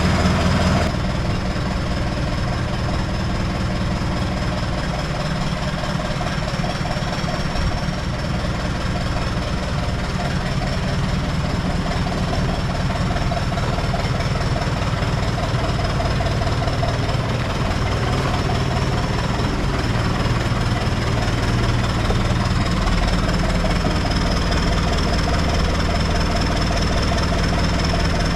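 Cummins diesel engine of a Case 430 skid steer running steadily, with a steady high-pitched whine over it.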